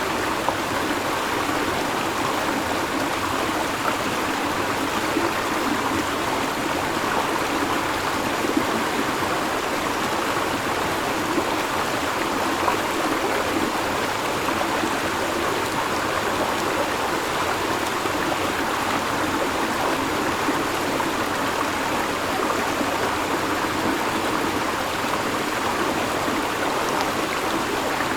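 A river flowing, a steady, unbroken rush and burble of water.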